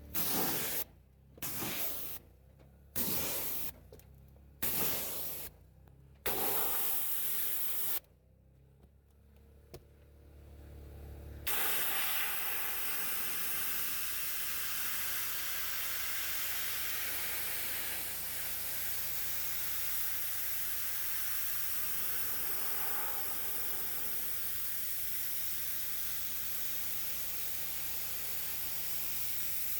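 Pressure washer spraying: five short trigger bursts of about a second each, then after a brief pause a continuous spray.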